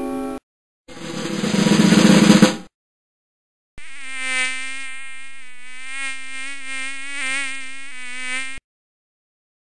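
A drum roll swelling louder for about two seconds, then, after a short gap, a flying insect buzzing: a steady drone with a slight waver in pitch for about five seconds that cuts off abruptly.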